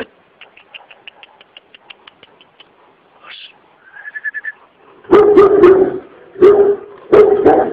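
Kangal dog barking loudly in three bursts, starting about five seconds in: aggressive guard-dog barking. Before the barking there is a run of faint, quick ticks.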